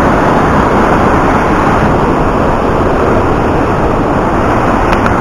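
Loud, steady noise of the Rhine Falls, a 150 m wide waterfall, with a huge volume of water pouring over the rocks.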